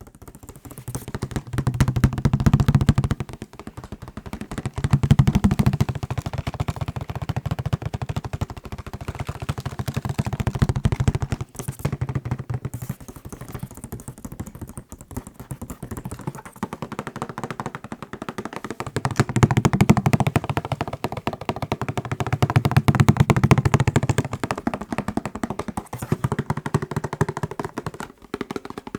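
Fast fingertip tapping on macarons, a dense rapid patter that runs without pause, with louder, deeper stretches a couple of seconds in, around five seconds, and again for several seconds past the middle.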